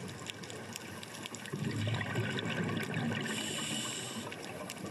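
Water sounds recorded underwater on a scuba dive: bubbling and trickling over a faint steady crackle, with a brief hiss about three seconds in.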